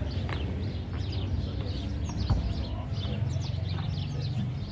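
Birds chirping: many short, quick, downward-sweeping chirps overlapping throughout, over a steady low rumble, with one sharp knock a little over two seconds in.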